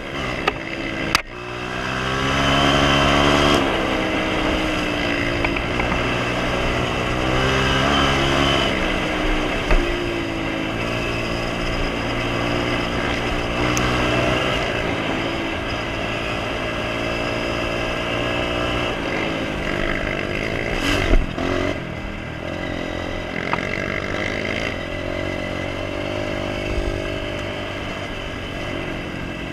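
Honda CRF230F dirt bike's single-cylinder four-stroke engine under way. It picks up near the start, then holds and changes pitch as it shifts through the gears. There is a single sharp knock about two-thirds of the way through.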